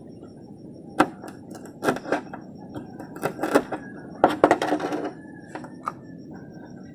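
Kitchen knife chopping small pieces of food on a hard tabletop: a single sharp knock about a second in, then quick clusters of knife taps, and two last separate taps near the end.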